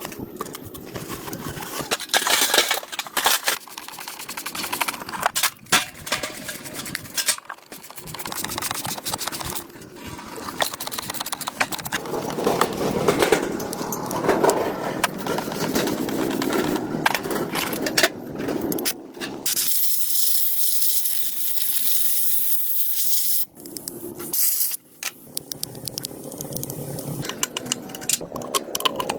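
Hands-on work on a car: irregular metal clinks, knocks and scraping, with a steady hiss lasting about three seconds around twenty seconds in.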